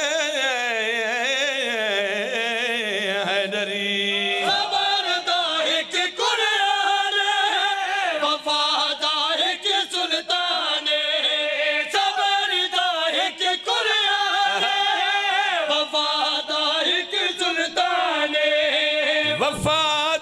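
Men's voices chanting a Punjabi devotional qaseeda (praise poem) over microphones, with no instruments heard. It opens with one long held, wavering note, and after about four seconds moves into shorter sung phrases.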